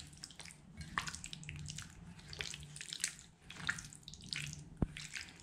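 Wet squelching of a hand kneading chicken pieces in a thick yogurt-and-spice marinade in a steel bowl, in irregular squishes, with one sharp click near the end.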